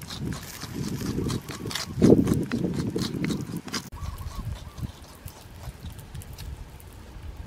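A wooden stick stirring and scraping coarse salt, chopped chili and garlic in a coconut-shell bowl: gritty crunching with quick clicking taps against the shell. About four seconds in it drops suddenly to quieter, sparser scraping.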